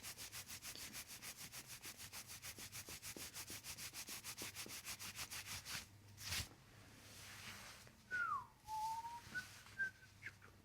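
Rapid, even rubbing strokes, about seven a second, lasting about six seconds, then a single click. Near the end comes a short falling whistle followed by a few brief high notes.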